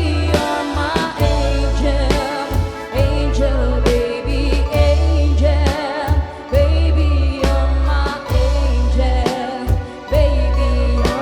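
Band music: a pop ballad with a wordless sung melody over a pulsing bass line and a steady drum beat.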